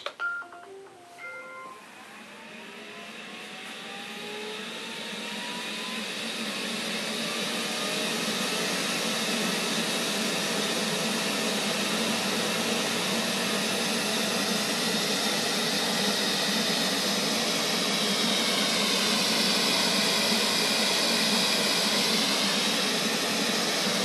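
Neato robot vacuum starting a cleaning run: a button click and a few short electronic beeps, then its motors spin up, rising in pitch and level over several seconds, and settle into a steady running hum and hiss. It starts without the "my vision was blocked" error, its LIDAR motor freshly replaced.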